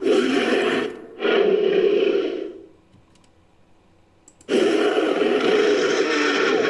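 Gorilla-like monster roar sound effect: two roars back to back in the first couple of seconds, then a longer one starting about halfway through after a short pause.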